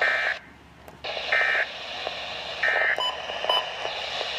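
Weather radio alert header: three short bursts of chirping digital data tones about a second and a quarter apart, then two short beeps, over radio hiss.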